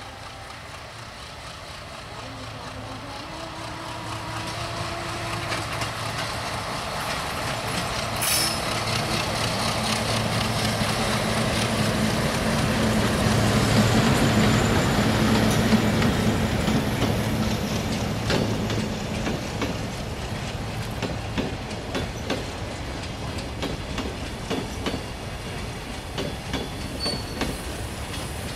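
Diesel locomotive hauling a freight train of covered wagons approaches and passes. Its engine hum grows to its loudest about halfway through. Then the wagons roll by with a steady clickety-clack of wheels over the rail joints.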